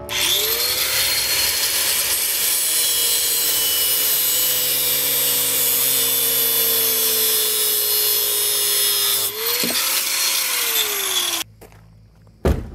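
Angle grinder spinning up and grinding metal, its motor pitch slowly dropping under load and briefly recovering about nine seconds in. It shuts off after about eleven seconds and winds down, and a single sharp knock follows near the end.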